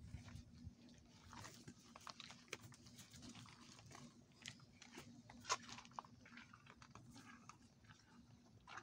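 Calves chewing and snuffling at leaves on dry ground: faint, irregular crunching clicks, with one sharper click about five and a half seconds in.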